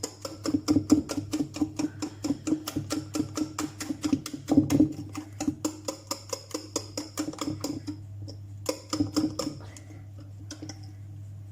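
Cake batter being beaten in a mixing bowl, the beater knocking against the bowl in a quick, even rhythm of about five strokes a second. The beating stops about eight seconds in, with a few more strokes about a second later.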